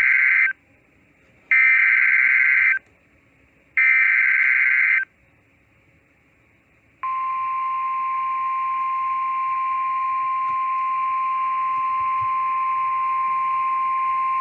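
NOAA Weather Radio Emergency Alert System header: three bursts of screeching SAME data tones, each about a second long, the first already under way. After a pause of about two seconds comes the steady 1050 Hz warning alarm tone, which runs on to the end. Together they announce a flood warning.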